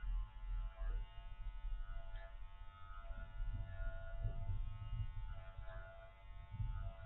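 Electric dog grooming clipper running with a steady hum while it is worked through a dog's dense curly coat.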